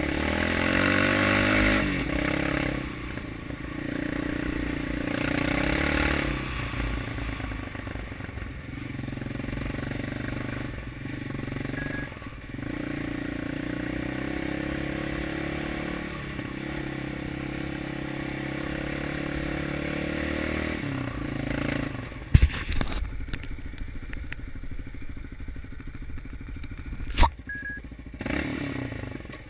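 Yamaha Raptor 700 quad's single-cylinder engine running on a dirt track. Its pitch rises under throttle near the start, then it runs steadily and eases off in the last quarter. Two sharp knocks stand out, one about three-quarters of the way in and one near the end.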